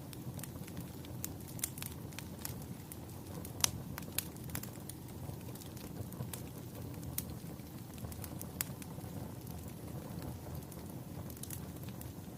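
A fire crackling: irregular sharp pops and snaps over a steady low rumble of the flames, with one louder pop about three and a half seconds in.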